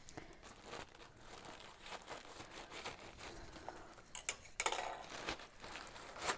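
Packaging being handled and crinkling during an unboxing: soft irregular rustling, with a few louder crinkles about four to five seconds in.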